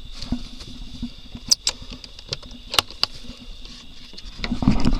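Scattered sharp clicks and knocks of gear being handled at a utility vehicle's metal pipe rack. Near the end comes louder rustling and rubbing.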